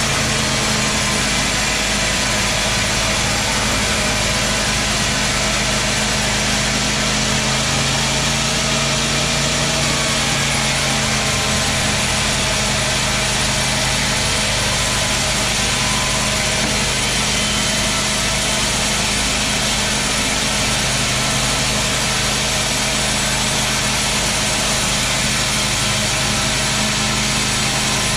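Sawmill saw running steadily and cutting through a large teak log: a loud, continuous machine whine and hum over the rasp of the blade in the wood, with no break.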